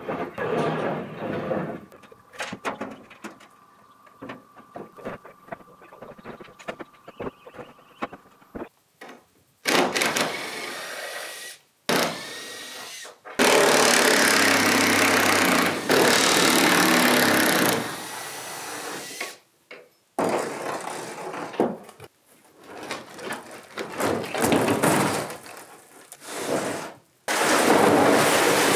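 Cordless drill backing out the fixing screws of corrugated cement roof sheets, running in several long bursts of a few seconds each. Between the bursts come sharp knocks and clatter as the sheets are handled.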